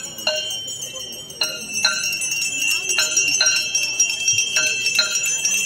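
Metal aarti bells ringing. They are struck over and over in a steady rhythm, mostly in quick pairs, and a high ringing tone hangs on between the strokes.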